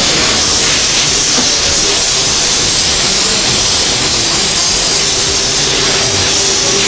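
Compressed-air gravity-feed paint spray gun spraying, a loud steady hiss.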